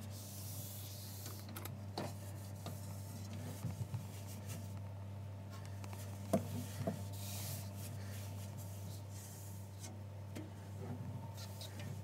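A soapy cloth rubbing over the plastic walls and glass shelf inside a refrigerator, in soft swishing strokes with a few light knocks. A steady low hum runs underneath.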